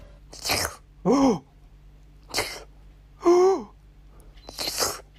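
A cat making three short breathy, sneeze-like bursts, each followed a moment later by a short mew that rises slightly and then falls in pitch.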